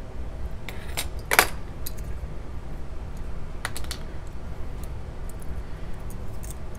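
Small clicks and clatter of a Hot Wheels die-cast toy car being taken apart by hand, its metal base, plastic interior and window piece knocking against each other and against the fingers. A few sharp clicks, the loudest about one and a half seconds in, then lighter ticks.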